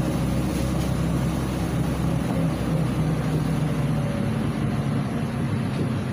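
Inside a LiAZ 5292.67 city bus on the move: its YaMZ-53624 compressed-natural-gas engine drones steadily under continuous road and tyre noise from the wet street.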